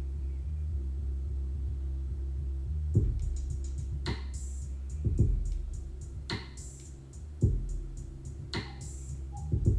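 Instrumental music with a drum-machine beat, played through HomePod speakers. A steady deep bass comes first, then about three seconds in a beat begins, with a heavy hit roughly once a second.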